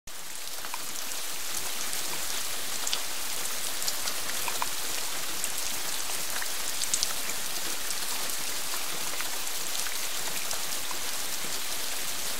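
Steady rain falling, an even hiss with scattered individual drops ticking on surfaces, swelling in over the first second or two.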